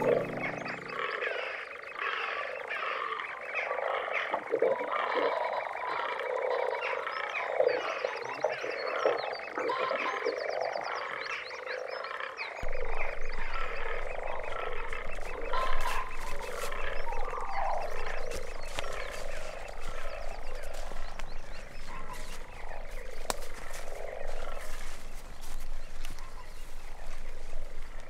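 A chorus of frogs croaking, many short calls overlapping without pause, with a few sharp clicks in the second half.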